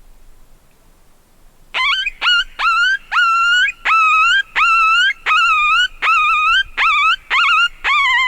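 Predator call sounding a quick series of about eleven short, loud coyote-like whining cries, each swooping sharply up in pitch and then held with a wavering tone, starting about two seconds in. It is used to lure coyotes in.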